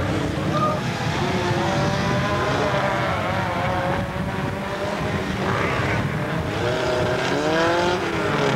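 Engines of several classic Mini rallycross cars running hard together, their pitch rising and falling as the drivers rev and lift through a tight corner.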